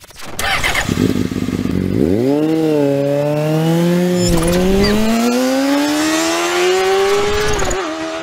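Motorcycle engine accelerating: from about two seconds in its note climbs steadily for several seconds, dipping briefly once in the middle, then stops abruptly at the end.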